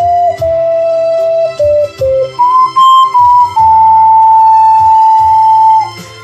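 Ocarina playing a slow melody over a backing accompaniment. A short run of notes steps downward, then the melody jumps up, and about halfway through it settles on one long held note.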